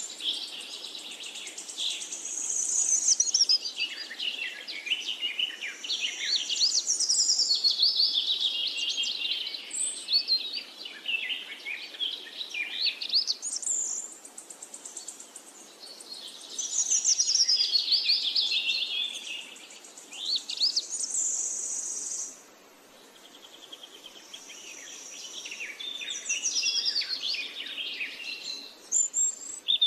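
Birds chirping and calling, many quick rising and falling notes overlapping, with a few held high trills now and then.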